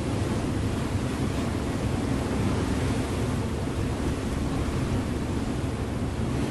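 River motor ship under way: the steady low drone of its engine, with water rushing along the hull and wind on the microphone.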